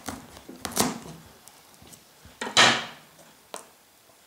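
Kitchen knife cutting through a whole pumpkin's hard rind and flesh on a wooden cutting board: small clicks and knocks, with two louder short cracking sounds, one about a second in and the loudest just past the middle.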